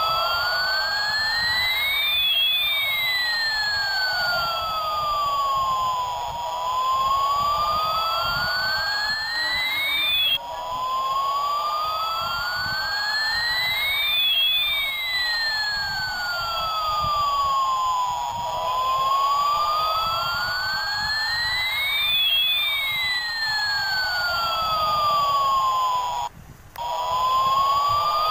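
Slow wailing siren sound, the pitch rising and falling over about eight seconds per cycle, with two tones gliding in opposite directions and crossing at each peak. It restarts abruptly about ten seconds in and drops out briefly near the end.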